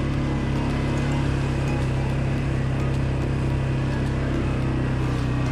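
CF Moto 520L ATV's single-cylinder engine running at a steady speed with 4x4 engaged, a constant low hum with no change in pitch.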